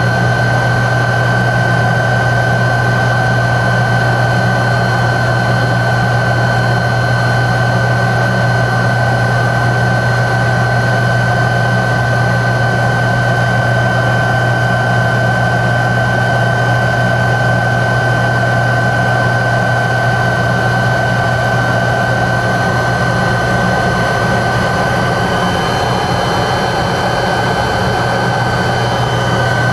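Tupolev Tu-134B-3's rear-mounted Soloviev D-30 turbofans heard inside the cabin, running steadily with a strong low hum and a steady high whine.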